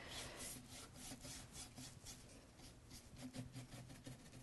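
A chip brush's bristles rubbing over an ornate picture frame in quick, repeated strokes as dark glaze is dry-brushed on, each stroke a faint scratchy swish. A faint low hum lies under it.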